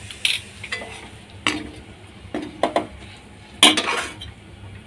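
Perforated metal skimmer scraping and knocking against a metal kadhai as a cooked potato filling is scooped out, giving a handful of sharp clanks, the loudest about three and a half seconds in.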